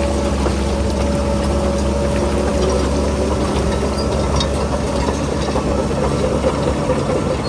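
Diesel engine of heavy earthmoving machinery running steadily with a low, even hum.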